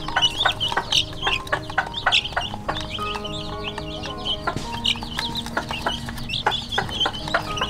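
Young chickens peeping continuously in rapid, high chirps while feeding, with many short sharp ticks of beaks pecking at a plastic feeder trough.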